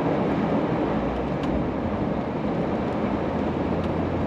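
Steady engine and road noise of a Chevrolet heard from inside the cab while driving on snowy roads: an even rush with a low engine hum underneath.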